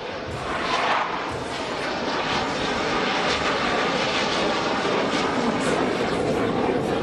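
Jet roar of a U.S. Air Force Thunderbirds F-16 fighter making a low, slow-speed pass, loud and steady throughout, with a slight rise in pitch near the end.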